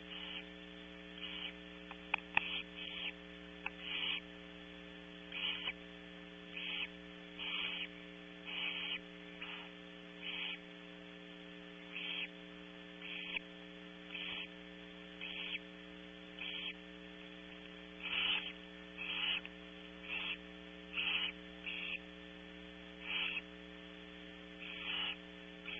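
Barn owl nestlings giving their hissing, snore-like begging calls, each about a third of a second long and repeated roughly once a second during a feeding. A steady electrical hum from the nest-box camera runs underneath, with a couple of sharp clicks about two seconds in.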